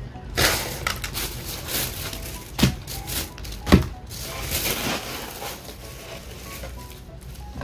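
Plastic bag crinkling and rustling for a few seconds, with two sharp knocks about a second apart near the middle as a cat-food can and a bag of food are set down on a metal tabletop.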